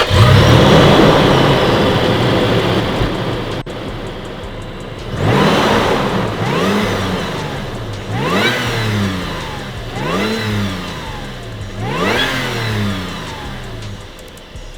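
Magnuson-supercharged 4.0 L V6 of a 5th-gen Toyota 4Runner starting up with a flare of revs that settles over the first few seconds, then revved repeatedly, about every two seconds. A high whine rises and falls with each rev.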